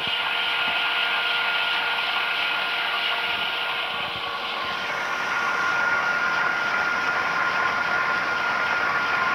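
Fluxe JTF150 single-phase electric jet pump (1.1 kW, 2900 rpm) running steadily for irrigation: a constant motor hum with a steady high whine over an even rushing noise.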